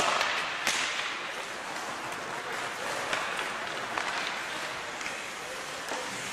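Ice hockey faceoff: sticks crack together as the puck is dropped, with a second sharp crack under a second in. Then skate blades scrape the ice in a steady hiss, broken by scattered clicks of sticks on the puck.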